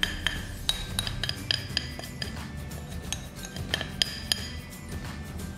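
A metal spoon scraping and tapping against a glass bowl: a run of irregular clinks, each with a short high ring, as a thick sugar and maple-syrup mixture is scraped out onto bacon.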